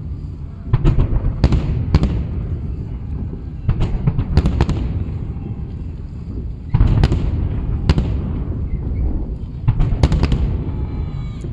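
Fireworks display: aerial shells bursting overhead in clusters of sharp bangs, sometimes several in quick succession, over a continuous low rumble of further bursts.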